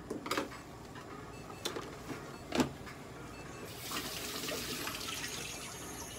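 A few knocks and bumps as a cat is handled on a stainless steel exam table; the loudest comes about two and a half seconds in. From just under four seconds in, a steady hiss sets in.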